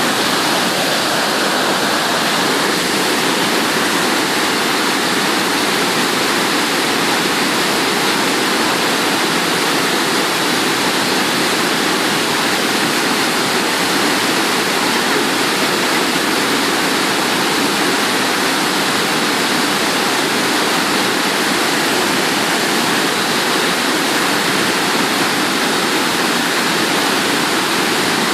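Waterfall rushing: a loud, steady roar of falling water that never changes.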